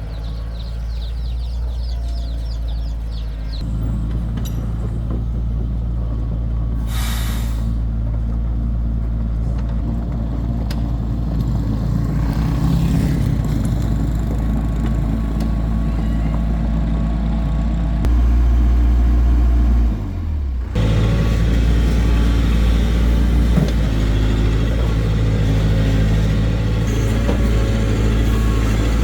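Heavy diesel engine of construction machinery running steadily, growing louder about four seconds in, with a short hiss of released air about seven seconds in.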